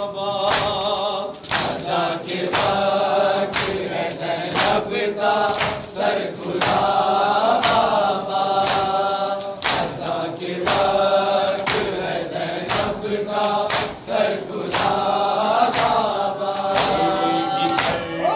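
Men chanting an Urdu noha, a Shia lament, in unison with a lead reciter on a microphone. A steady beat of hand-on-chest slaps (matam) keeps time under the voices.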